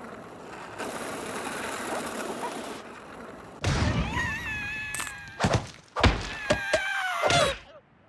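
Cartoon slapstick sound effects: a rushing noise, then, about three and a half seconds in, a series of heavy thuds and rock breaking. A held high-pitched tone sounds over the impacts, which stop shortly before the end.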